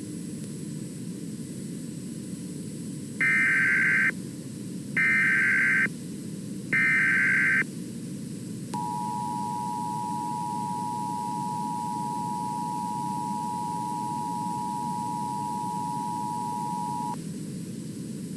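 Emergency Alert System SAME header from EAS-ADR software: three short bursts of warbling data tones, each under a second and about a second apart. These are followed by the EAS two-tone attention signal, a steady dual tone held for about eight seconds. Both sit over a steady low background noise.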